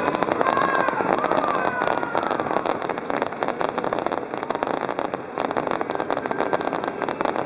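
Fireworks crackling densely and without a break, a rapid rain-like patter of many small bangs that eases briefly about five seconds in.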